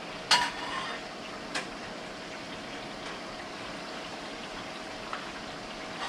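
Snapper frying in a pan, a steady sizzle. A sharp metallic clink about a third of a second in and a fainter click about a second and a half in, from a utensil or the pan.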